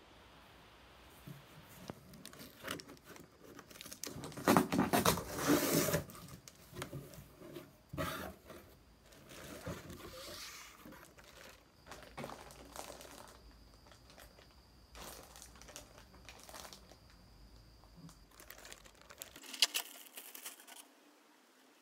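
Cardboard box flaps being opened and clothes in clear plastic bags pulled out and handled, the plastic crinkling in irregular rustles. The loudest rustling comes about four to six seconds in, with a sharp crackle near the end.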